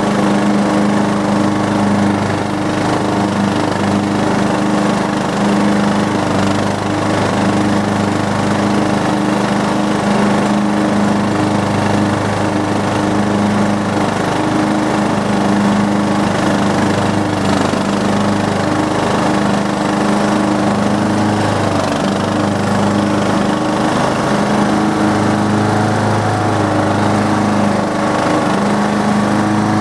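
Riding lawn mower's Briggs & Stratton engine running steadily while mowing grass, its low hum swelling and easing every few seconds.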